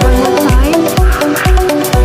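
Electronic dance music with a heavy kick drum about twice a second under a synth melody.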